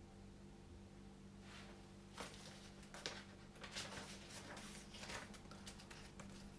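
Near silence with a faint steady hum, broken from about two seconds in by a few soft clicks and rustles of something being handled.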